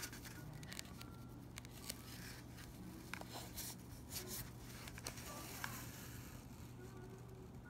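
Faint scattered rustling, scraping and small clicks of a needle and thread being worked through hair wefts and a wig cap during hand-sewing, over a low steady hum.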